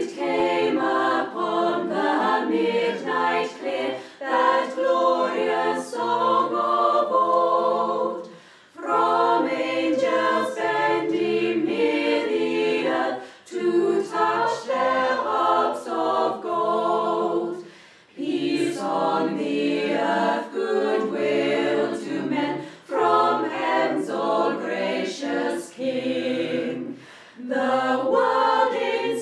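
A choir singing a cappella, in long phrases with brief breaks between them.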